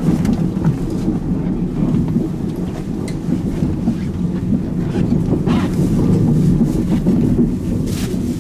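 Steady low rumble inside a sleeper train carriage, with a few brief rustles and clicks from bedding and berth fittings being handled.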